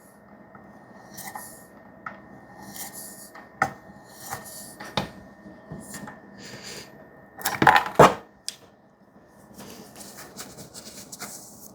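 Light scraping swishes of a 3V steel knife blade being glided over the fine ceramic hone of a Work Sharp sharpener, the final finishing stage, a stroke every second or two. A few sharp clicks come between the strokes, and a louder pair of knocks comes near the middle.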